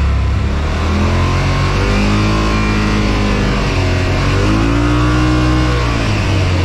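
Yamaha RMAX2 1000 side-by-side's parallel-twin engine running under way, its pitch rising and falling twice as the throttle is opened and eased off, over a steady low rumble.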